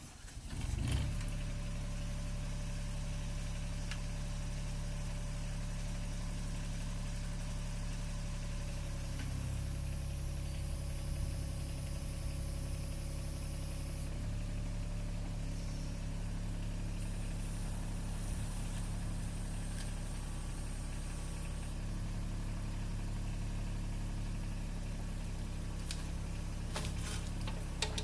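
An engine running steadily at a constant speed, shifting slightly in tone a few times.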